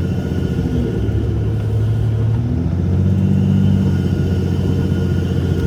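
Diesel Jeep's 3.0-litre EcoDiesel V6 running under way with a steady low rumble; about three seconds in, the engine note rises as it picks up revs.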